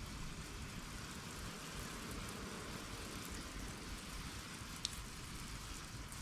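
Garden hose nozzle set to a light misty spray, hissing steadily as fine water spatters over a fishing rod and reel to rinse off salt.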